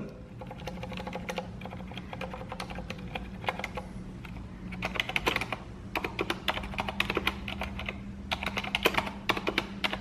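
Typing on a Corsair STRAFE RGB mechanical keyboard fitted with Cherry MX Silent switches, which are made to be quieter than other mechanical switches: pretty quiet keystrokes in quick flurries, sparse at first and coming faster from about halfway through.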